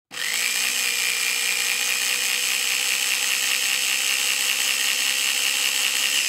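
Electric countertop blender switched on, its motor whining up to speed within about half a second, then running steadily at high speed.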